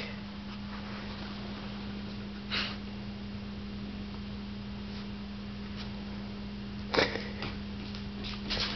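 English bull terrier sniffing at a dachshund's rear in a few short, separate sniffs, the loudest about seven seconds in and several more near the end, over a steady low hum.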